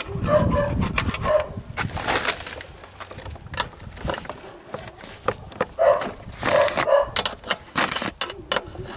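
Clicks, knocks and rattles of a plastic handlebar fairing being worked loose from an IZh Planeta 5 motorcycle by hand. Short pitched cries come near the start and again about six seconds in.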